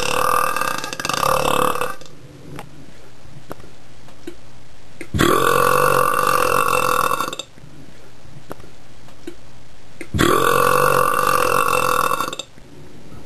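A man belching long, drawn-out burps with a steady pitch, brought up from swallowed air rather than soda. There are three in all, each about two seconds long: one is already going at the start, the next comes about five seconds in and the last about ten seconds in.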